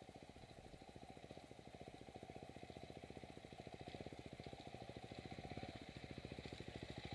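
KTM 690 Enduro R's single-cylinder engine idling with a fast, even beat, while other dirt bikes' engines grow louder as they come closer near the end.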